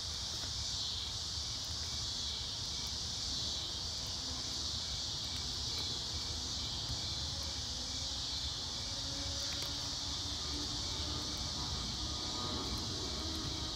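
Steady chorus of night insects such as crickets, with a faint regular chirping pulse running through it and a low rumble underneath.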